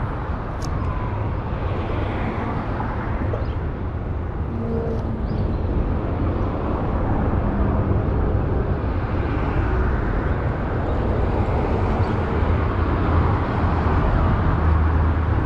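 Steady rumble of highway traffic, growing slightly louder in the second half.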